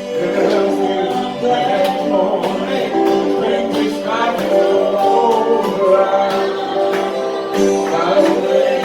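Gospel singing with instrumental accompaniment: held chords under a bending vocal line, with frequent sharp percussive strikes.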